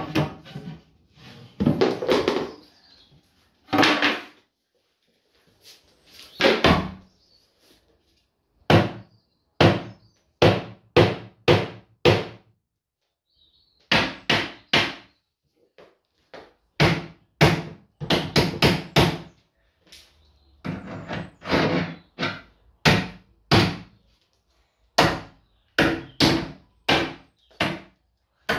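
A long series of hard blows on wooden kitchen units being smashed: about thirty separate bangs, each dying away quickly, several coming in quick runs of three to six with a short pause about halfway through.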